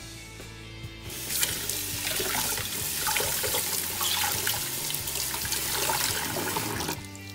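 Tap water running into a stainless steel saucepan in a steel sink while it is scrubbed with a sponge; the running water starts about a second in and stops shortly before the end.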